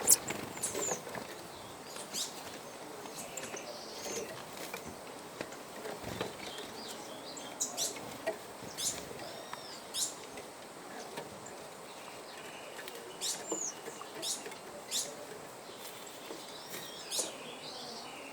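Small songbirds giving short, high chirps and call notes, scattered irregularly, over soft rustling.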